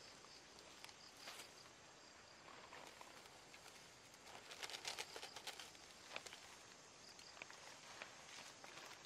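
Faint rustling and crackling of dry grass and brush being pulled up by hand and tossed aside, with a cluster of louder crackles about four and a half to five seconds in.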